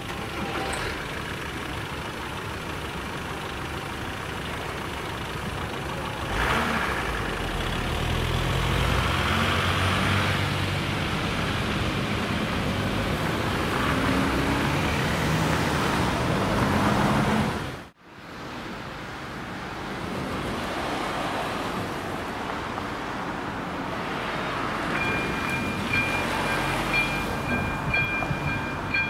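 Road traffic at a level crossing: cars pull away and drive over the tracks once the barriers are up, their engines rising and falling. Near the end the crossing's electronic warning bell starts ringing, a high tone with a steady repeating beat.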